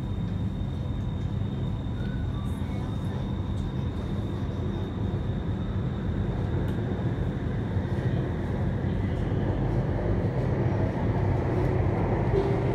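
Bangkok MRT subway train running, heard from inside the carriage: a steady low rumble and hum with a faint thin whine that fades out, the noise growing louder near the end.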